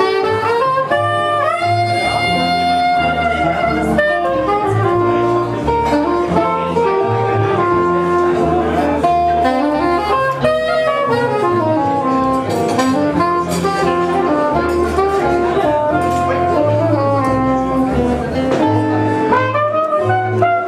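Small jazz combo playing live: a soprano saxophone solo over archtop guitar and double bass, with a brass horn taking the lead near the end.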